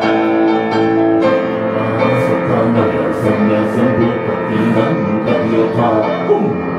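Grand piano playing a slow instrumental passage; the held chord gives way to a new one about a second in.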